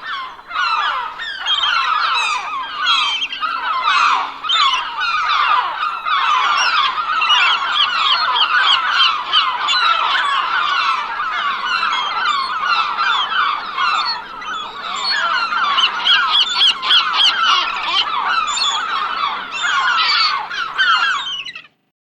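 A flock of gulls calling, many short calls overlapping at once, cutting off suddenly near the end.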